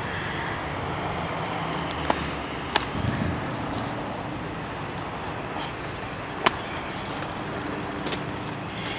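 Steady traffic noise, with a faint drawn-out hum through the second half and three sharp snaps, about two, three and six and a half seconds in.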